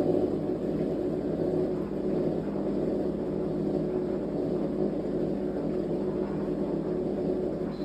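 Fisher & Paykel MW059NZ washing machine running a blankets wash cycle, a steady mechanical whirring hum. At the very end the sound changes, with a high thin whine and a deeper rumble coming in.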